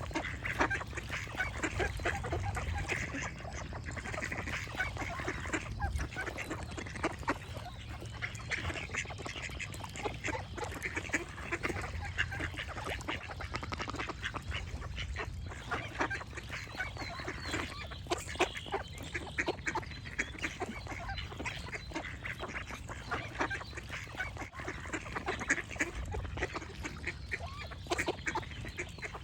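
Ducks quacking in a steady stream of rapid, overlapping calls, with birds chirping.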